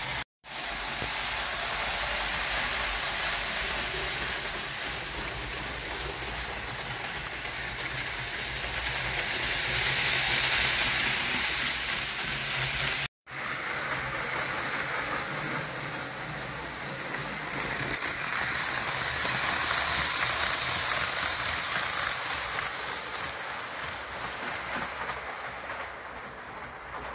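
Model train running on layout track: the steady rolling rattle of small wheels on the rails. It swells twice as the train comes close and fades away, and cuts out briefly twice.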